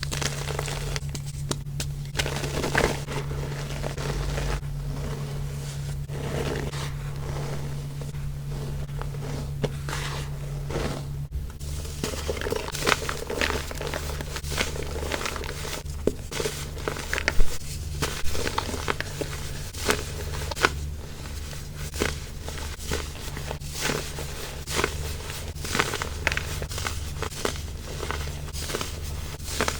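Baking soda crumble being crushed and crumbled: a dense, uneven run of crisp crunches and crackles, the "snowy" crunch of packed baking soda breaking apart, over a faint low hum.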